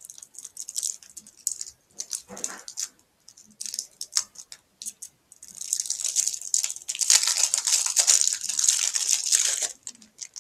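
Plastic and cardboard packaging of a camcorder battery being handled and torn open: scattered crackles and clicks, then several seconds of dense crinkling.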